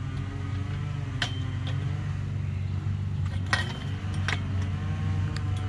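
A steel chain-link fence top rail tube clinking against the fence and its fittings as it is handled: a few sharp metallic knocks with a brief ring, over a steady low hum.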